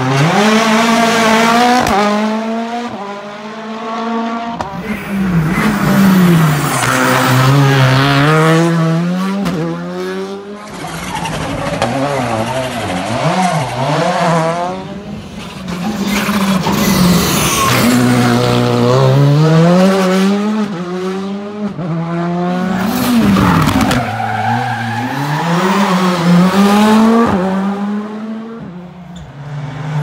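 Rally cars' turbocharged four-cylinder engines revving hard through hairpin bends, one car after another: the pitch climbs steeply through the gears and falls away on braking, again and again.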